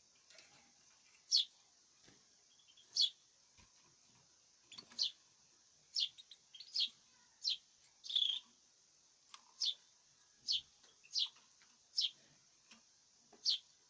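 Cage bird chirping: about a dozen short, high calls, each a quick downward sweep, spaced roughly a second apart.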